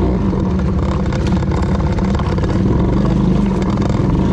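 Motorbike engine running steadily while riding.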